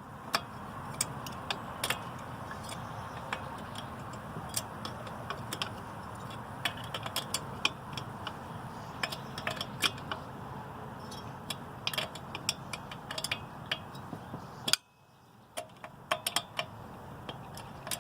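Small metal clicks and clinks of an open-end wrench on the carburetor mounting nuts, worked a little at a time and flipped over between turns, irregular over a steady hiss.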